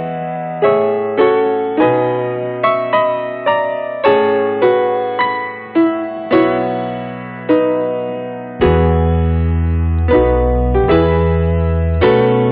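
Background piano music: a slow melody of struck notes that each fade away, joined by held low bass notes from about two-thirds of the way in.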